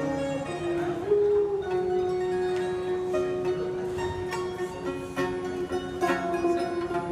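Music on plucked string instruments: quick plucked notes over a long held note that lasts most of the way through.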